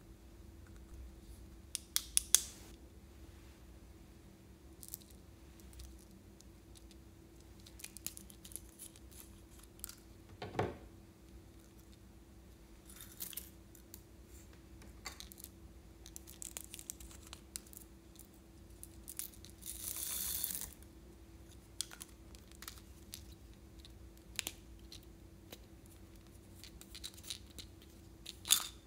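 Small plastic clicks, taps and rustles as toy cone-shaped containers with figure tops are handled over a glass dish. A quick cluster of sharp clicks about two seconds in is the loudest, with a brief rustle near two-thirds of the way through, over a faint steady hum.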